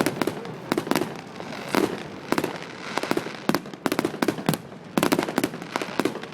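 Fireworks exploding overhead: rapid, irregular bangs and crackles from aerial shells, several a second in clusters.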